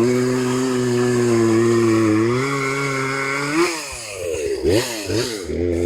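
Chainsaw engine running at a steady pitch, then from about three and a half seconds in its pitch swings up and down repeatedly as the throttle is blipped.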